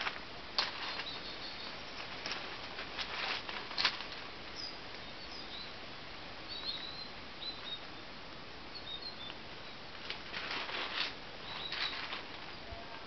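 Garden ambience: small birds chirping faintly now and then over a steady hiss, broken by several short bursts of rustling, the sharpest a little under a second in and about four seconds in, with a longer patch of rustles around ten to eleven seconds.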